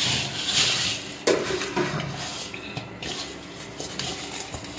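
Hands mixing and kneading soft, wet flour dough in a metal bowl, squishing and rubbing the dough against the bowl. There is a sharp knock against the bowl about a second in.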